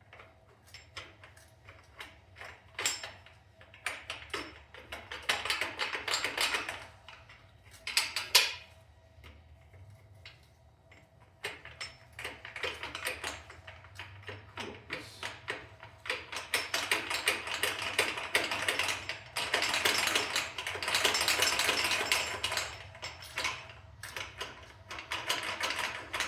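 Motorcycle exhaust pipe being wiggled and worked out of its rear seal by hand: irregular metal clicks and knocks mixed with long stretches of scraping, heaviest in the second half.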